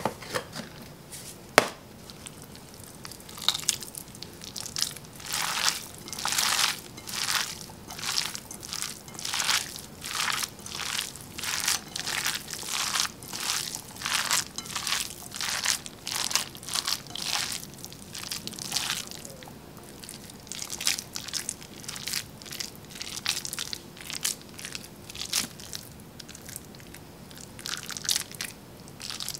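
Bare hands mixing and squeezing a veggie burger mixture of meatless ground crumbles, chopped onion, pepper and breadcrumbs in a bowl, in a steady run of strokes about one and a half a second, softer in the last third. There is a single sharp knock about a second and a half in.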